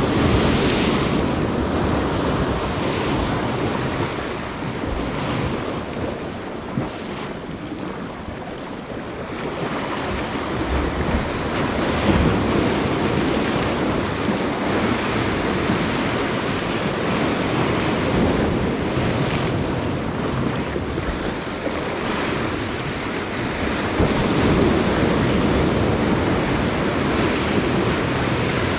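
Ocean surf breaking and washing, with wind buffeting the microphone: a loud, continuous rush that eases off briefly and swells again a few times.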